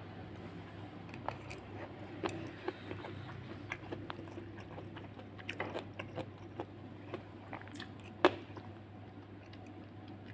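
Close-up chewing and biting of food: irregular small crisp clicks and crunches, with a cluster of them around six seconds in and one louder, sharper crunch about eight seconds in.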